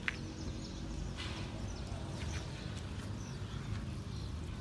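Outdoor ambience: a steady low rumble with scattered short, high bird chirps, and a single sharp click right at the start.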